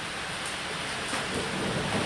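Steady heavy rain falling on a roof, with a low rumble of thunder starting to build near the end.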